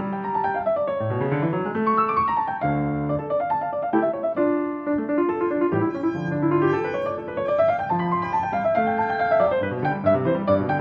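Background piano music: quick rolling runs of notes that sweep up and down over sustained lower chords.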